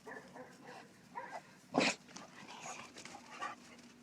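A dog gives one short, sharp bark about two seconds in, with a few fainter short dog sounds around it.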